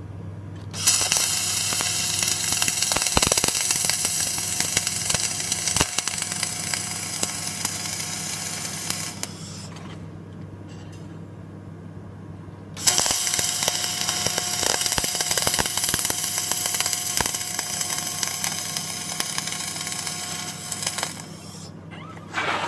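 Flux-cored arc welding: two long runs of steady arc crackle, each about eight seconds, with a pause of about three seconds between them, and a brief third strike near the end. A low steady hum runs underneath.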